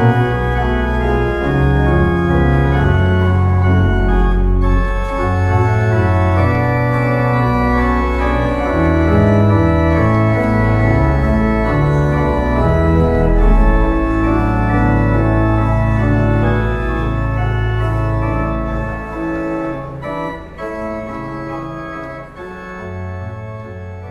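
Church pipe organ playing slow, sustained chords over a deep pedal bass, dying away over the last few seconds.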